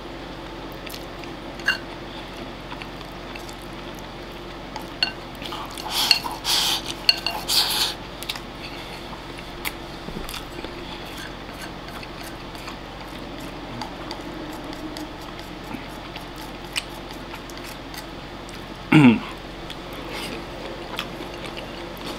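Chopsticks clinking and scraping against a ceramic rice bowl as food is stirred and scooped, with scattered single clicks and a dense flurry of scraping about six to eight seconds in. Near the end comes one short, loud sound that drops steeply in pitch.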